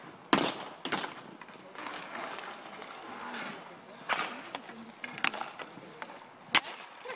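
Inline hockey play on an asphalt rink: inline skate wheels rolling, with several sharp clacks of hockey sticks striking the ball and the pavement, and players and spectators calling out in the background.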